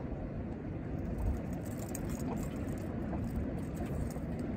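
Wind buffeting the microphone: a steady, uneven low rumble, with a few faint light clicks.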